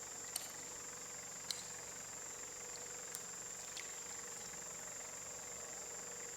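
Steady, faint night insect drone, one continuous high-pitched note, with a few light clicks in the first four seconds as something is handled.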